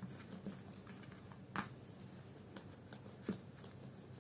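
Faint rubbing and a few light clicks of a small plastic rolling pin and hands flattening modelling clay on a sheet of paper, over a low steady hum. The sharpest click comes about one and a half seconds in, another near three seconds.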